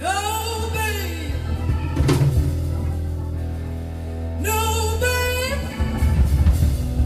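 Live band playing a slow soul-blues ballad: a female singer holds a long, bending note at the start and sings another phrase about four and a half seconds in. Under her are sustained organ chords and bass, and the drums come in with a cymbal crash about two seconds in.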